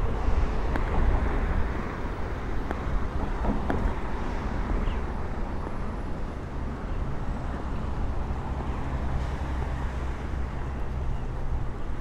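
Road traffic: a steady wash of car and engine noise from passing vehicles.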